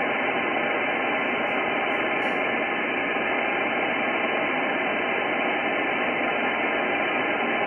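Icom IC-9700 transceiver receiving the satellite downlink in upper sideband with no station in the passband: a steady, even hiss of receiver noise, cut off above the narrow sideband filter.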